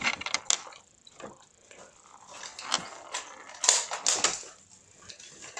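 Irregular handling noise close to the microphone: scattered clicks, knocks and rustles of objects being moved about, loudest in a cluster of knocks about three and a half to four and a half seconds in.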